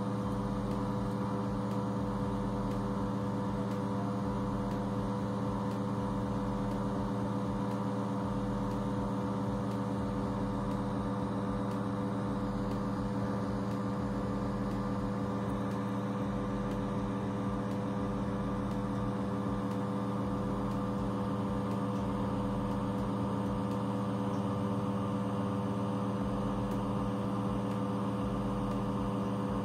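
A steady machine hum made of several constant tones, unchanging throughout.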